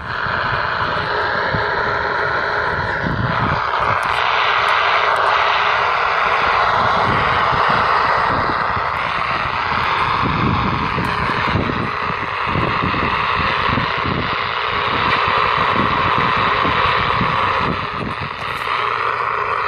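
Emperor P-3203 CB walkie-talkie hissing with steady receiver static from its small speaker, with faint wavering tones in the noise.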